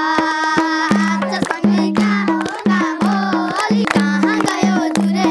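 A boy singing a Nepali folk song while playing a madal hand drum, with frequent sharp drum strokes under the voice.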